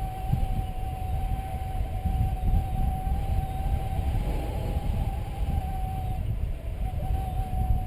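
Wind rushing over the camera microphone in flight, the loudest sound, with a paragliding variometer's steady beeper tone held underneath. The tone breaks off for a moment about six seconds in.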